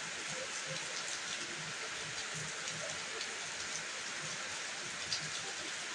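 Steady hiss like rain falling, with scattered small ticks and one sharper click about five seconds in.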